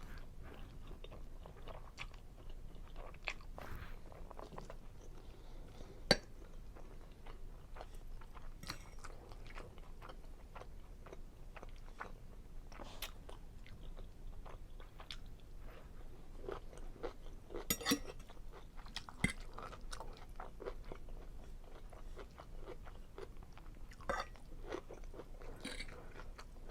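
Close-miked chewing and mouth sounds of a person eating seafood Alfredo linguine, a steady run of small wet clicks and smacks. A few sharper clicks stand out, the loudest about six seconds in and a cluster around eighteen seconds.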